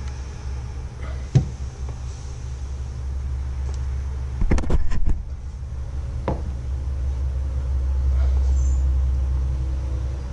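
A small-engine carburetor being handled and taken apart: a few sharp metallic clicks, with a short clatter of parts about four and a half seconds in, over a steady low hum.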